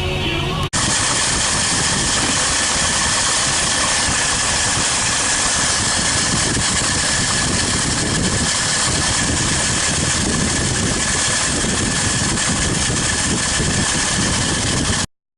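1967 Mercedes-Benz 250S's 2.5-litre straight-six engine running steadily at an even speed. It starts abruptly about a second in and cuts off suddenly just before the end.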